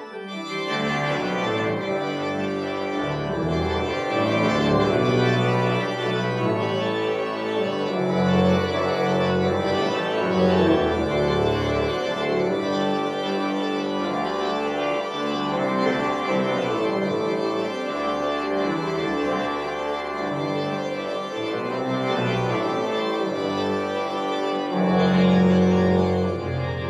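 1979 Austin pipe organ playing a piece in held chords over a moving pedal bass, with a stronger low chord near the end.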